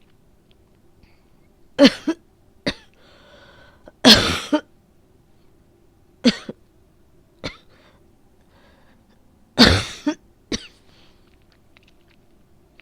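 A woman coughing repeatedly: a run of short, loud coughs a second or two apart, some in quick pairs. It is the chesty, phlegmy cough of a cold.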